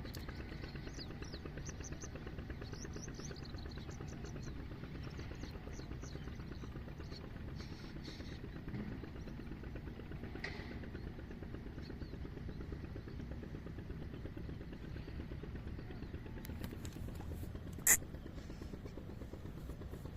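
Outdoor background: a steady low rumble, with short high bird chirps in the first half and a single sharp knock near the end.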